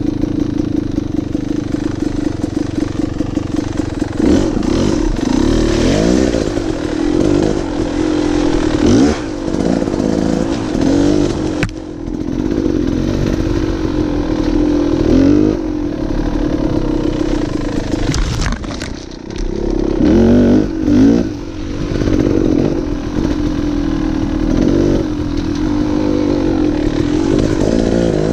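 Dirt bike engine running under way on a rough trail. It holds a steady note for the first few seconds, then rises and falls over and over as the throttle is opened and shut, with a couple of brief drops.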